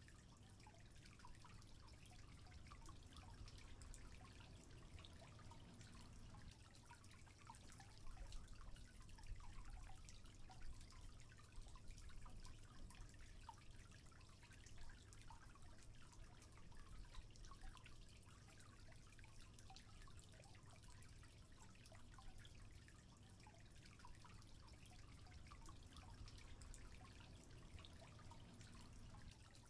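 Faint water trickling and dripping: many small irregular drop sounds over a low steady rumble.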